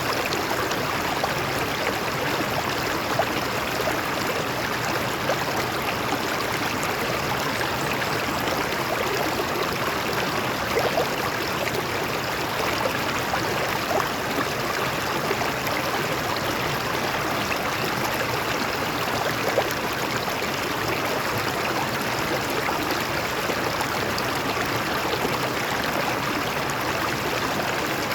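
Stream water flowing over rocks, a steady rushing with small splashes and gurgles.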